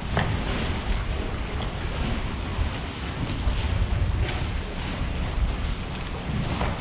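Wind buffeting the camera microphone with a low rumble, over choppy open water sloshing.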